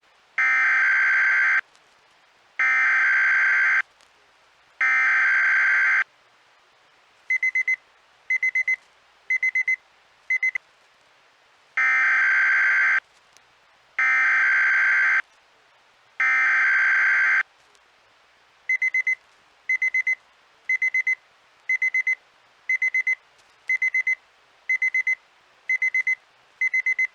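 Weather radio emergency alert signal. Three buzzy digital header bursts come first, then short clusters of high beeps about once a second. A second set of three header bursts follows, and the beeping alarm starts again.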